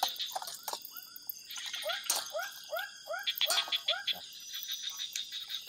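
Frogs calling in a chorus of short arched croaks, several a second in quick runs, over a steady high hiss, with a couple of sharp clicks.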